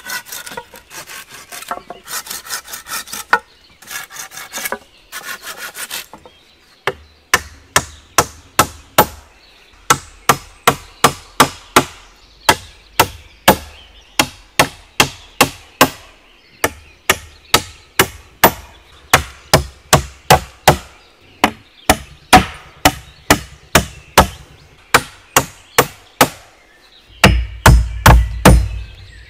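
Hand saw cutting through a green wooden pole in quick rasping strokes for about six seconds. Then a hatchet knocks repeatedly on wooden poles, driving nails to fasten the shelter frame: sharp blows about two a second in runs with short pauses, heavier near the end.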